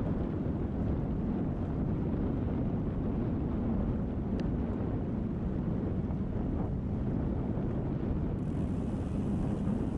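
Steady low wind rumble buffeting the microphone on a moving recumbent trike, with road noise underneath.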